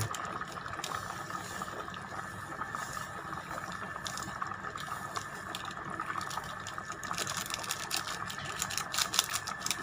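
Chicken macaroni soup boiling in a rice cooker pot: steady bubbling and simmering, with the small pops growing denser over the last few seconds.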